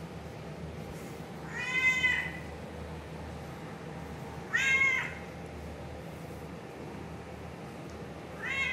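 Black cat meowing three times, about three seconds apart, each meow about half a second long.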